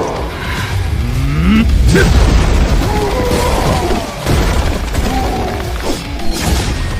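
Fight-scene sound effects: deep booms and impacts over a continuous low rumble, with music and shouting voices.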